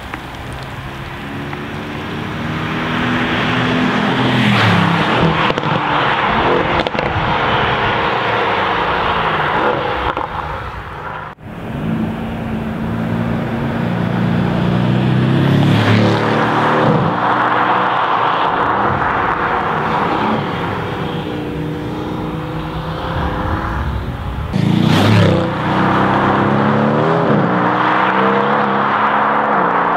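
Mercedes-AMG GT S's twin-turbo V8 through a titanium sport exhaust, revving hard on several drive-bys. The pitch climbs and falls with each run, and there are sharp cracks at the loudest moments.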